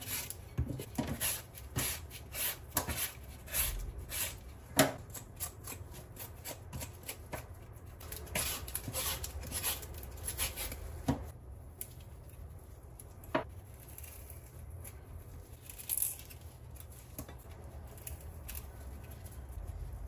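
Vegetable peeler scraping the skin off sweet potatoes in short, irregular strokes, with a few sharper knocks as the peeler and peelings hit the stainless steel sink.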